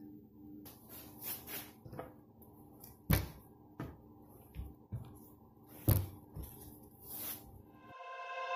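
Kitchen handling sounds: soft rustling of a cloth bag and several sharp knocks and clacks, the loudest about three seconds and six seconds in. Quiet music fades in near the end.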